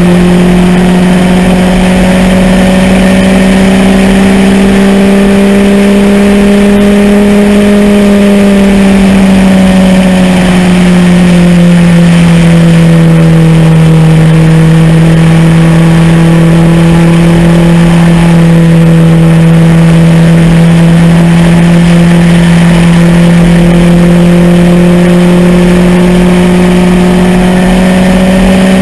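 MEV Rocket's engine running hard at speed on track, loud and near-constant in pitch: it climbs slightly, drops back a little around the middle and climbs again near the end.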